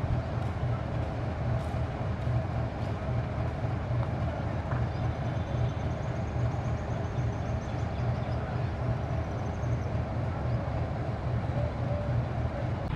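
Diesel locomotive engine running steadily, a low continuous rumble.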